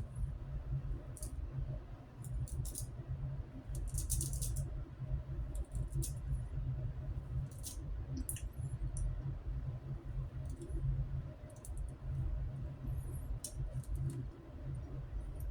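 Wet-shaving sounds: short, scratchy strokes at irregular intervals over a steady low hum.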